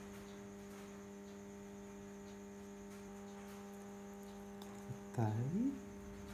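Steady electrical mains hum, a constant drone with several evenly spaced overtones, with a single faint click just before five seconds in.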